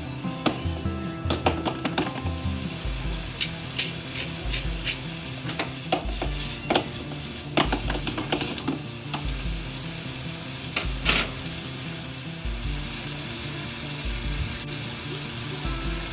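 Chopped chicken and onion sizzling in a frying pan on a gas burner, with white wine just added. The pan is shaken and tossed, giving sharp metal clacks now and then through the first part, loudest about a second and a half, seven and a half and eleven seconds in.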